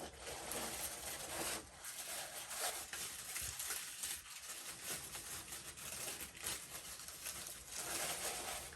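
Paper packaging rustling and crinkling as a vacuum attachment is unwrapped by hand, with a brief lull about one and a half seconds in.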